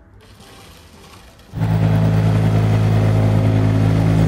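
Toy tractor starting up: about a second and a half in, a loud, steady engine-like drone with a low hum cuts in suddenly and holds steady.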